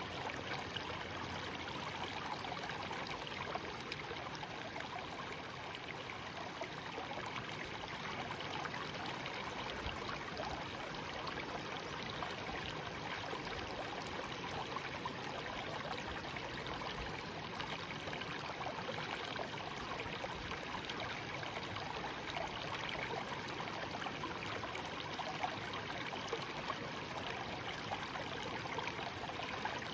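Shallow brook babbling steadily: a continuous, even rush of running water with fine trickling and splashing detail.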